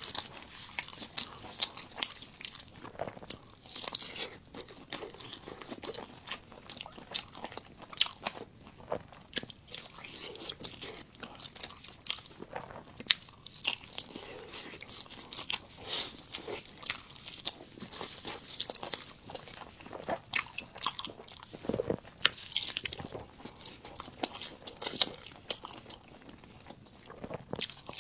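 Close-miked eating of spicy fried noodles: steady chewing with many sharp wet mouth clicks, and a few longer hissy sounds along the way.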